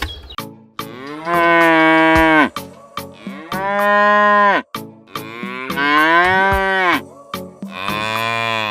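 Cattle mooing: four long drawn-out moos, each bending down in pitch at its end, over a regular ticking.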